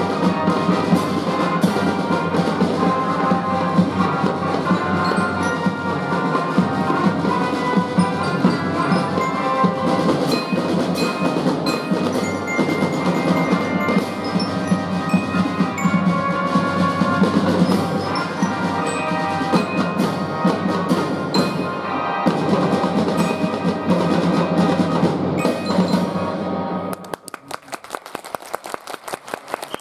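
Youth drum and fife band playing a march-style piece, a bright glockenspiel melody over drums. The music ends about 27 s in, and applause follows.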